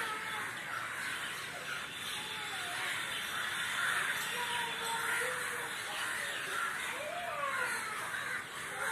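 A large flock of crows cawing together in a continuous clamour, many calls overlapping without a break.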